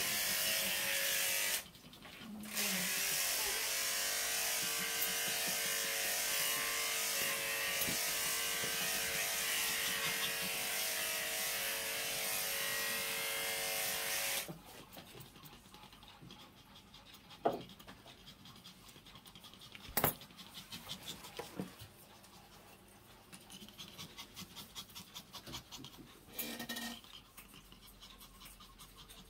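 A small electric grooming or cleaning device runs with a steady buzzing hum and hiss, stops briefly near 2 seconds, then runs on and cuts off about 14 seconds in. After that a dog pants softly, with a few sharp clicks.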